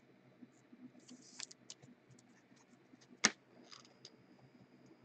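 Faint scratchy rustling and small clicks of a trading card in a clear plastic sleeve being handled, with one sharp click about three seconds in.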